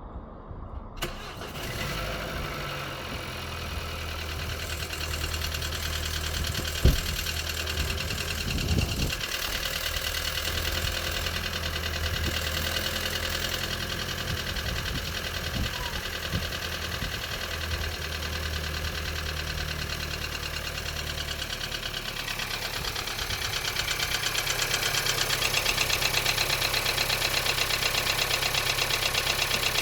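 Turbocharged four-cylinder 1.5 TSI petrol engine cranking and catching from cold about a second in, then idling with a rapid, even ticking knock, whose cause the owner does not know. The ticking grows louder about two-thirds of the way through.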